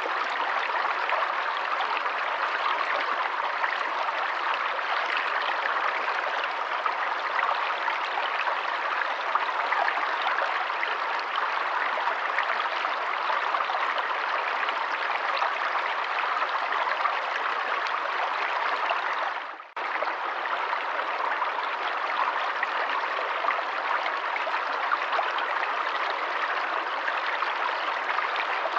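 Forest stream running water, flowing steadily with an even rushing burble, broken once by a brief drop-out about two-thirds of the way through.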